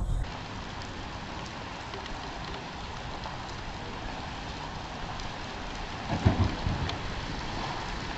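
Steady hiss picked up by a car's dash camera, with a sudden low thump about six seconds in.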